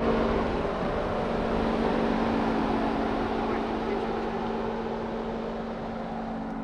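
Jeep engine running steadily with a constant low hum, slowly growing quieter.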